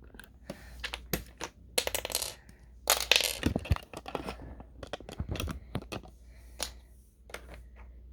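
Plastic keycaps being pulled off and handled on a Dareu EK75 mechanical keyboard: irregular sharp clicks and clatter with short scraping sounds, busiest a couple of seconds in.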